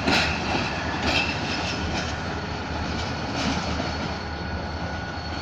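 Train wheels clattering over the rail joints as the train pulls out, the knocks thinning out and the sound slowly fading.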